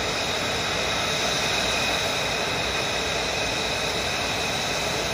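F-35 fighters' jet engines idling on the ramp: a steady hiss with a faint high whine.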